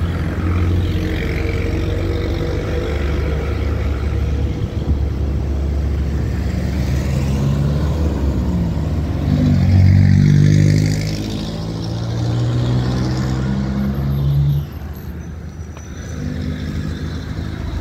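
Road traffic passing close by: cars and motorbikes driving past with a steady engine hum. The loudest vehicle goes by about ten seconds in.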